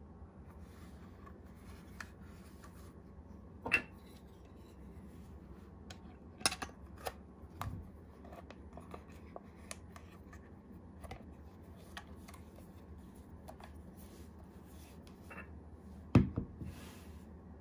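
Handling noise from a Leica M7 film camera body turned over in a cotton-gloved hand: faint rubbing and scraping with scattered light clicks and knocks. The loudest knock comes near the end.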